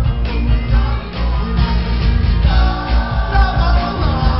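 Live band playing a song: a male lead singer over electric guitar, bass and drums.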